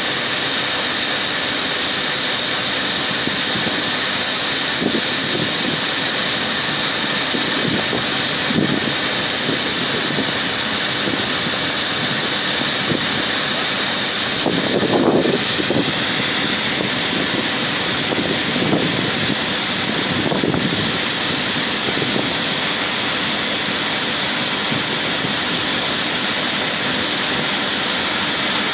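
John Deere combine running while harvesting corn: a loud, steady whir of the machine, with a few short louder rumbles, the strongest about halfway through.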